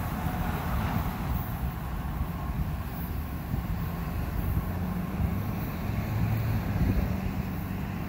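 Distant rumble of a CSX double-stack intermodal freight train moving away down the track. A faint ringing tone fades out about a second in.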